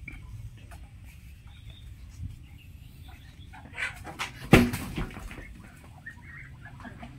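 Farmyard background with a few short calls from the poultry, and a single loud thump about four and a half seconds in.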